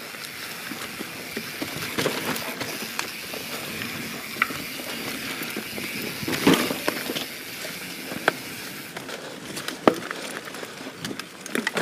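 YT Jeffsy 27 mountain bike rolling fast down dirt singletrack: a steady rolling rush from the tyres with frequent clicks and rattles from the bike, and sharper knocks about six and a half and ten seconds in.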